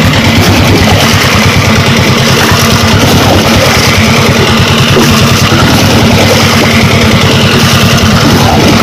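Engine running steadily with a fast, even low beat, driving a belt-driven water pump.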